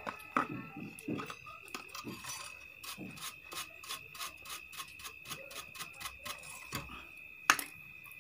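Brush scrubbing a welding machine's circuit board clean with thinner: a run of quick rubbing strokes, over a steady high whine. A single sharp click near the end.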